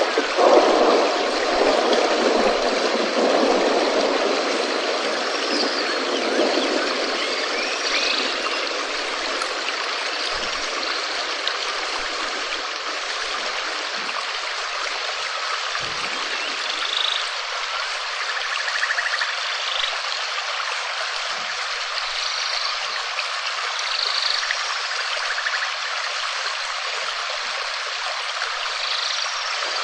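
Steady rain with water trickling and running, a continuous hiss that is fuller and heavier for the first several seconds, then eases a little. A few faint short chirps come through now and then.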